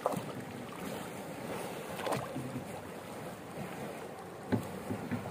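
Water sloshing and splashing around a small wooden canoe being paddled, with a few brief splashes or knocks from the paddle strokes, and wind on the microphone.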